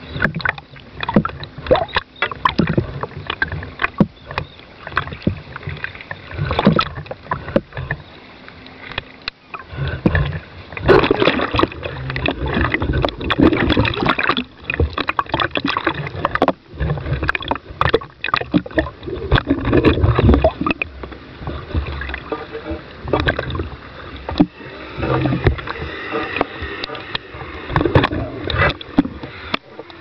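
Irregular knocks, rattles and water noise picked up inside a remote-control boat's cab.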